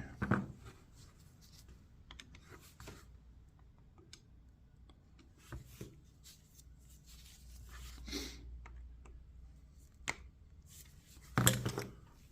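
Small-engine carburetor parts being handled during cleaning: scattered light clicks and taps of small metal parts, a short hiss about eight seconds in, and one louder knock near the end.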